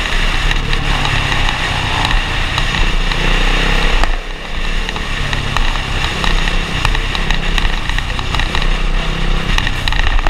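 Dirt bike engine running under throttle while riding on the road; the engine eases off briefly about four seconds in, then picks up again.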